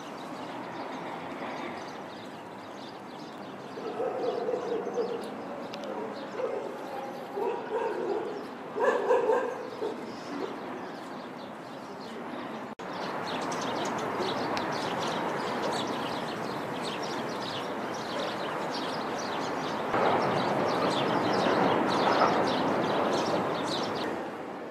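Stray dogs barking and yelping in a run of short calls for several seconds. After a sudden cut, a steady outdoor noise takes over and grows louder near the end.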